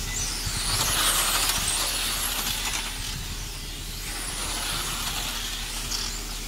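Electric 1/10-scale radio-controlled racing cars passing on the track, their motors giving high whines that rise and fall. The loudest pass comes about a second in.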